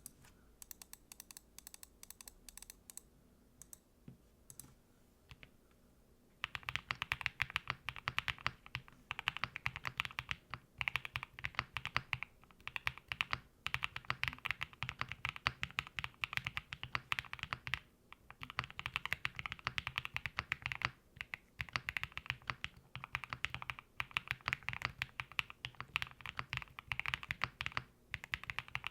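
Typing on a foamed QK65 mechanical keyboard built with custom polypropylene, long-pole switches and PBT keycaps, giving a deep, firm, thocky keystroke sound. A few scattered clicks in the first three seconds, then steady fast typing from about six seconds in, with brief pauses.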